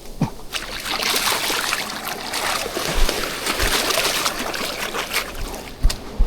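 Sea water washing and splashing at the shoreline, a hissing wash of foam that swells about a second in and eases off near the end, with a few dull bumps.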